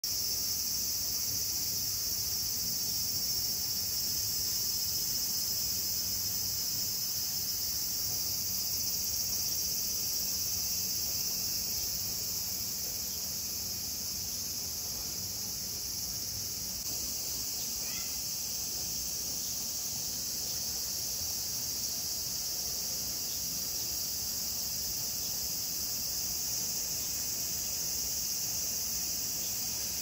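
A chorus of cicadas singing in a steady, unbroken high-pitched drone.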